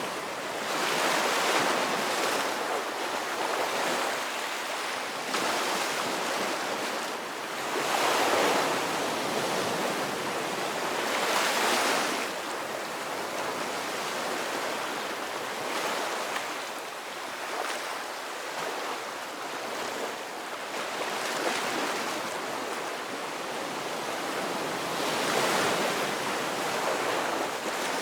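Ocean waves breaking and washing on a shore, a continuous rush of surf that swells with each wave, stronger around a second in, near the middle and near the end.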